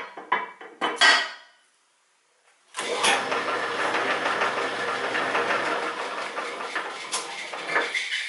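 A few sharp metal clinks and knocks from the lathe's controls, then about three seconds in the 1940 Sheldon 11-inch lathe starts and runs in back gear with a steady mechanical sound, stopping near the end.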